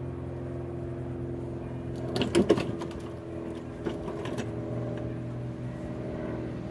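A steady mechanical hum, like an engine running, with a quick cluster of sharp metal clicks and clinks about two seconds in and a few more around four seconds, as of tools or parts being handled.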